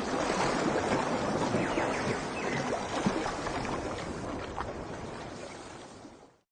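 Rushing water, a steady noisy wash with a few faint splashes, fading out to silence near the end.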